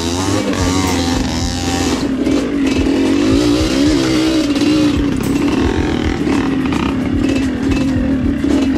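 Dirt bike engine running under throttle on a rough trail, its revs rising and falling.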